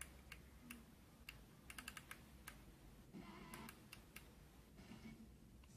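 Faint, sharp clicks of an iLuv clock radio's top buttons pressed over and over to step the FM tuning, with brief faint sound from its speaker between presses.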